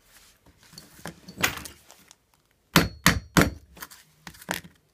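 Sharp knocks as a ball bearing is seated into the plastic hub of a Bugaboo Cameleon stroller front wheel. A run of four knocks about a third of a second apart comes a little past the middle, then another one or two near the end, after some quieter scraping.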